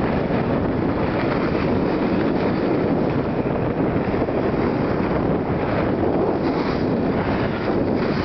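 Steady rushing wind noise on the microphone while moving down a snowy slope, mixed with the hiss of sliding over snow.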